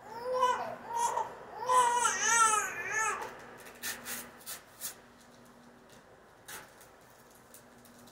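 A young child vocalizing in a high-pitched, rising and falling babble for about three seconds, then a few short crackles of wrapping paper being handled and torn.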